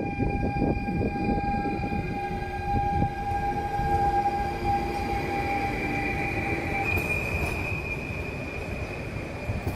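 PKP Intercity ED160 (Stadler FLIRT) electric multiple unit rolling past, its wheels rumbling on the rails under the steady high whine of its electric traction drive. One whine tone cuts off about seven seconds in, and a higher one steps up.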